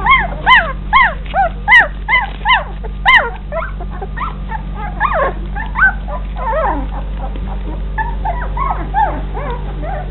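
A litter of 19-day-old Old English Sheepdog puppies whining and yelping. A run of loud, quick rising-and-falling cries comes in the first three seconds or so, then softer overlapping whimpers from several pups.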